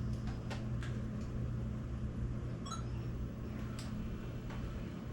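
A few light plastic clicks from buttons being pressed and the Digital8 camcorder being handled as it is switched to playback, over a steady low hum.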